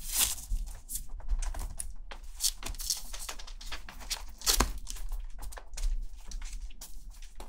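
Newborn kittens' claws scratching and scrabbling on a wooden floor as they crawl, in irregular short scratchy bursts.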